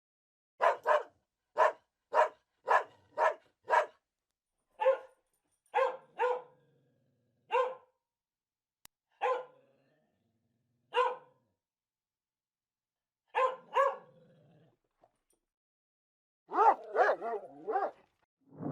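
A dog barking in a series of short, sharp single barks, several a second at first, then more spaced out, with a quicker run of barks near the end.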